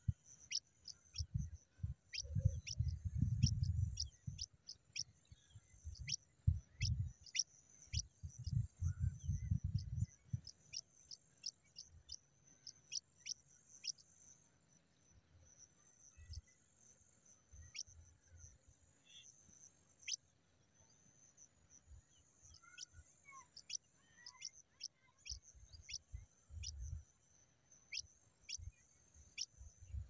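Pipit nestlings begging: a stream of short, thin, high chirps, each falling quickly in pitch, several a second, thinning out in the middle and picking up again near the end. Low rumbles come and go in the first third.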